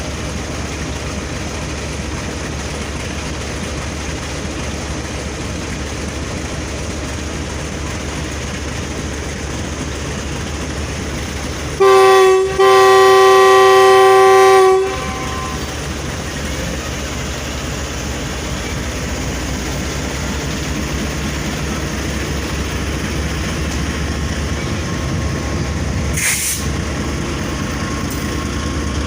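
Diesel locomotive horn: a short blast, then a longer blast of about two seconds, over a steady low rumble. The rumble of the arriving train grows toward the end, with a sharp click about 26 seconds in.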